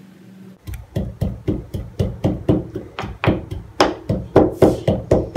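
Rapid pounding with a pestle, about four strikes a second, starting just under a second in: boiled chicken pieces being pounded into shreds.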